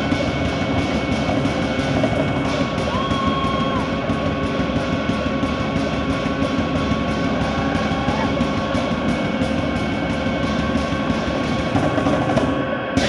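Live loud band music: a drum kit beaten in fast, continuous strokes under a dense wall of amplified noise with long held ringing tones.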